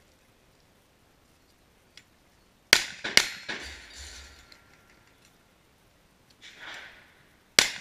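Gunshots: three shots in quick succession about three seconds in, each followed by a fading ring from struck steel targets, then another shot near the end.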